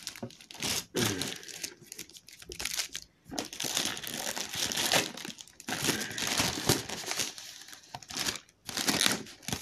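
Plastic mailer bag crinkling in irregular bursts, with short pauses between them, as it is pulled and worked around a tightly fitting box inside.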